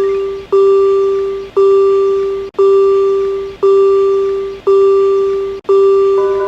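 Level-crossing alarm bell dinging at a slow, even beat, about once a second, each ding one pitched tone that fades before the next. Near the end a second, different-pitched ding joins in.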